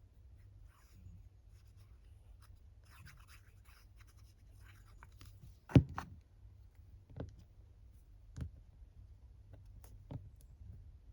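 Paper scraps being handled and laid down on a craft table: faint rustling, then a few short sharp knocks on the table, the loudest about six seconds in.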